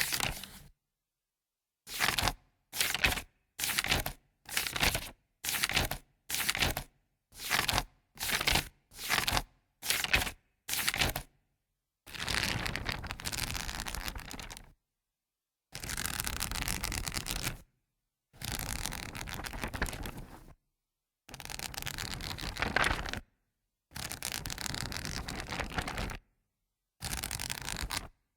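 Paper pages being turned, first one at a time with a short crisp swish about once a second. From about twelve seconds in come several longer runs of two to three seconds each, as pages are flipped rapidly one after another. Every take is separated by dead silence.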